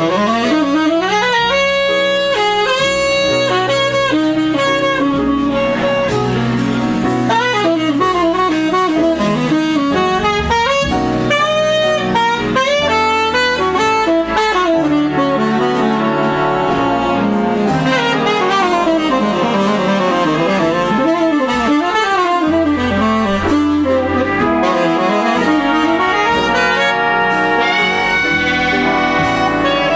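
Live jazz big band with a saxophone soloing in front: quick runs up and down over a bass line, with brass playing behind it.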